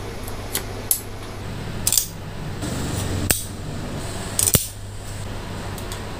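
Painted steel high-chair leg tubes being handled and fitted together, their spring-button locks pressed at the joints: several short metallic clicks and clinks, with louder ones about two seconds in and about four and a half seconds in, over a steady low hum.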